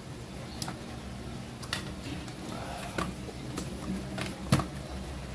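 Scattered light clicks and taps of hands and small tools handling a laptop's case and parts, about a dozen, with one sharper click near the end. A steady low hum runs underneath.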